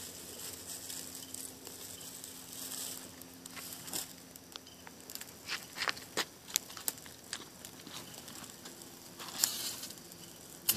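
Bird's nest of dry cut grass burning after ferro rod ignition, crackling with irregular sharp pops over a faint hiss.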